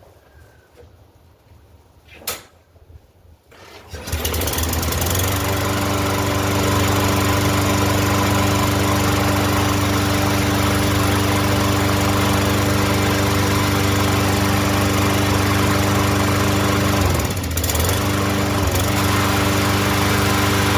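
Craftsman lawn mower's small engine, just fitted with a new carburettor, starting about four seconds in and running steadily. Near the end its speed dips briefly twice and recovers. A sharp click comes about two seconds in, before it starts.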